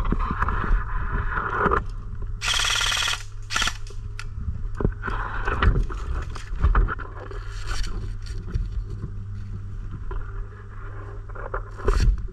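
Airsoft guns firing: a short full-auto burst about two and a half seconds in, with scattered single pops and clicks, over a steady low rumble of movement and handling noise.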